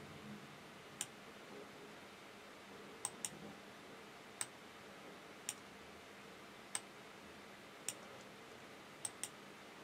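Computer mouse clicking: single clicks about every second, with two quick double clicks, over faint room tone.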